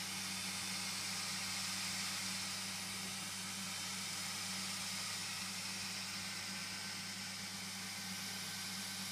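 Steady hiss with a low, even hum underneath; no distinct events.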